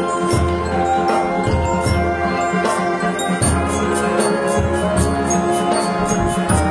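Marching band playing: sustained held chords over evenly repeated percussion strikes.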